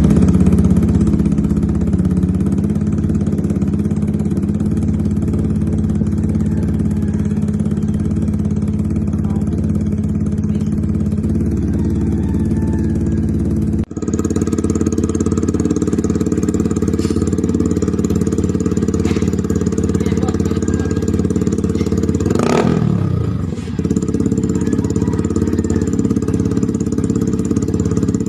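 Yamaha R15M's single-cylinder engine idling steadily through an SC Project full-system exhaust, with a brief break near the middle. About two-thirds through, the engine gives one quick rev that falls back to idle.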